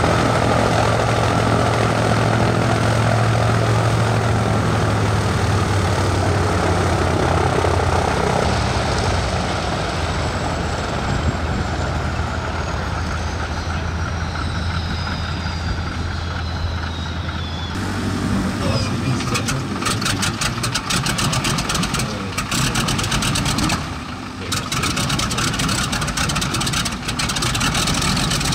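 Consolidated PBY Catalina's two Pratt & Whitney R-1830 Twin Wasp radial engines running at idle, dropping in pitch about eight seconds in. After about eighteen seconds, a North American T-6 Texan's nine-cylinder Pratt & Whitney R-1340 radial engine is heard instead, firing unevenly with sharp pops as it starts.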